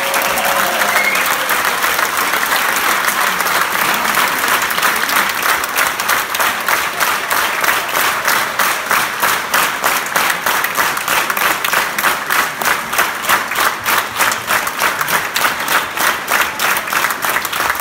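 Crowd applauding in a hall; about six seconds in the clapping falls into a steady rhythmic beat in unison, about three claps a second.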